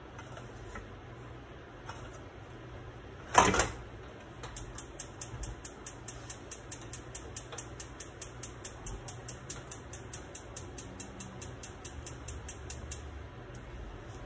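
Gas stove's spark igniter clicking rapidly and evenly, about five clicks a second for some eight seconds, as a burner is being lit. A short loud burst comes just before the clicking.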